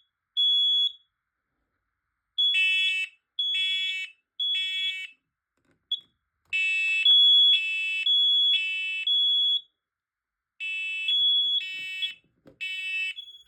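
Two smoke alarms in alarm, sounding together out of step in the three-beep temporal pattern. One gives a pure high beep and the other a harsher, buzzy beep, and the groups of three overlap and pause briefly in turn. They were set off by a smoke test.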